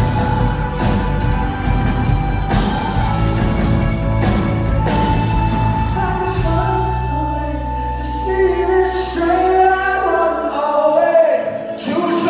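A live pop-rock band with a lead vocal. Drums play through the first half. The band then thins to held chords under the singing, and the bass and drums drop out for a moment near the end before the full band comes back in.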